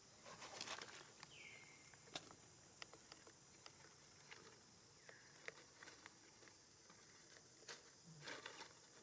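Faint rustling and clicking of monkeys moving about, with two short, high squeaks that fall in pitch, over a steady high hiss.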